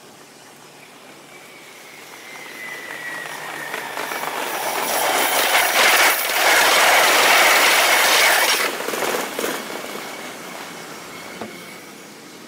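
Kintetsu electric train passing close by on the nearest track: rail and wheel noise builds up, is loudest for a few seconds in the middle, then fades away, with a faint high thin whine over it.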